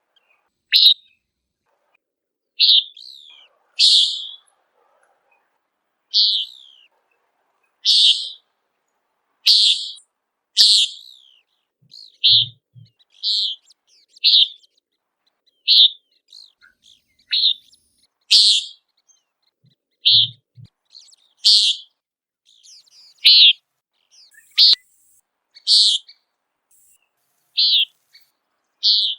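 Common nighthawk giving its loud, sharp, nasal "peent" call over and over, a short buzzy note about every one to two seconds.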